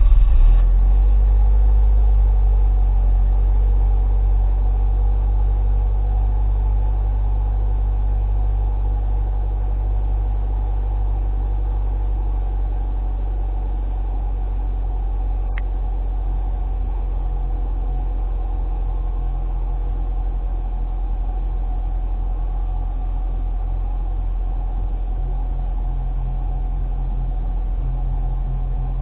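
Car engine heard at the tailpipe, catching on a cold start at −20 °C and then idling steadily. It is loudest just after it catches and eases down over the first ten seconds or so.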